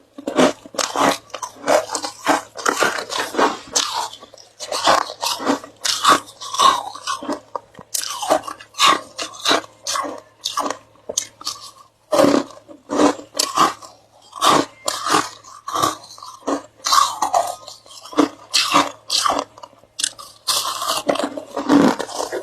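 Ice being bitten and chewed, a long run of crisp crunches coming a few times a second with short pauses between bites.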